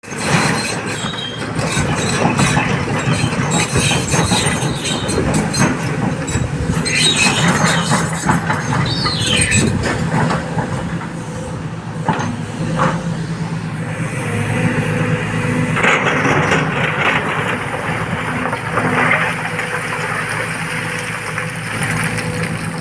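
Heavy diesel machinery of an excavator loading dump trucks: engines running steadily under clattering of rock and metal, with a brief high metallic squeal about nine seconds in.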